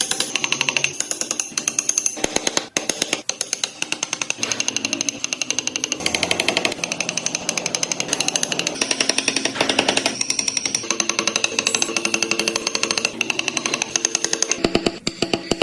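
A power tool with a rapid hammering action working wood, its pulses coming very fast and evenly, with its pitch shifting now and then.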